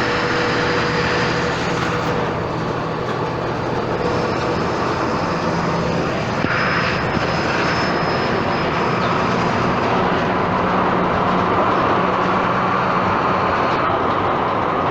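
Volkswagen Volksbus 17.230 EOD city bus with a Marcopolo Torino body, its engine running steadily, with a short hiss about six and a half seconds in.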